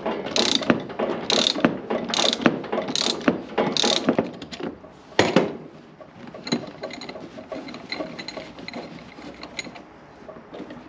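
A ratchet wrench clicks through strokes about once every 0.8 s, turning the threaded rod of a coil-spring compressor fitted to a shock absorber, and stops after about four seconds. A sharp metallic clack follows a little past five seconds, then fainter small clicks and rattles of the compressor and spring parts being handled.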